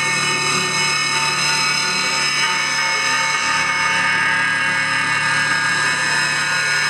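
Loud, steady, harsh drone of many high held tones from the live stage performance.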